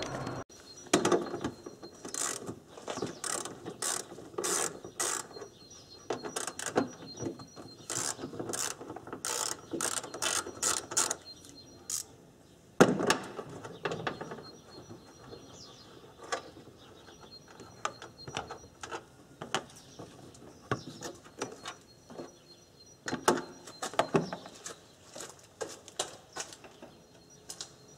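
Ratchet wrench clicking in quick runs, with knocks and clatter of tools, as the air-intake screws and hose clamp are undone.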